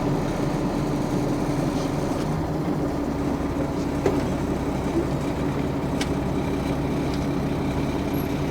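Mercedes-Benz OM 447 LA turbocharged six-cylinder diesel of an O-400 bus running steadily, a held engine hum over a low rumble.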